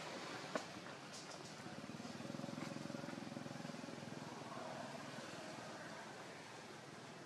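A distant motor vehicle engine, running with a low pulsing note, swells about two seconds in and slowly fades away. A single sharp click comes just before it.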